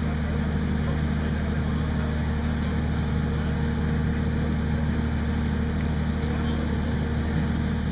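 A steady, unbroken low drone of an engine idling.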